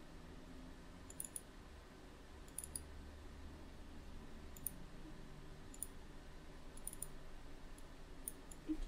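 Faint computer mouse clicks, single and in quick pairs, about every second or so, over a low steady background hum.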